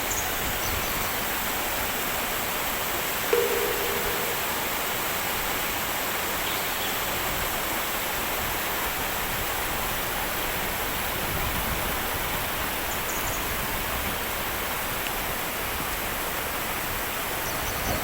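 Steady rushing of flowing river water. About three seconds in, a brief single tone cuts through, the loudest moment, and a few faint high chirps come and go.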